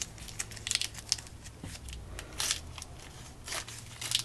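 Baseball trading cards and their pack wrappers being handled: short, irregular rustles and scrapes as packs are opened and cards are flipped through, over a faint steady low hum.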